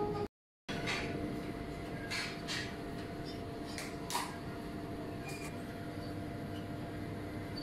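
A flute tune breaks off at the very start, followed by a moment of dead silence. Then comes a steady indoor background hum with a few faint, scattered clicks and knocks.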